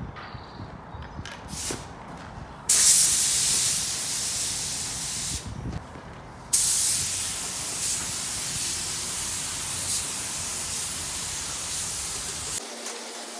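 Compressed-air gravity-feed spray gun spraying yellow paint: a loud, even hiss that starts abruptly about three seconds in, stops for about a second, then resumes until near the end.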